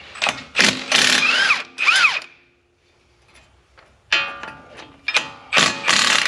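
Power impact wrench with an 18 mm socket, run in short trigger pulls on the wheel hub bolts. Its motor whine rises and falls with each pull, in a group of bursts about a second in and a second group from about four seconds in.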